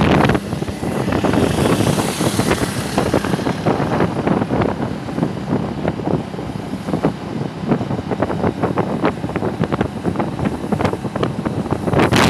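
Wind buffeting the microphone of a phone held on a moving motorcycle, in loud irregular gusts over the steady running noise of the bike on the road.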